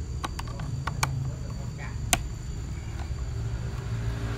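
Screwdriver clicking against the metal terminal screw of a motorcycle battery as a power wire is unfastened: several sharp clicks in the first second, with the loudest single click about two seconds in, over a low steady rumble.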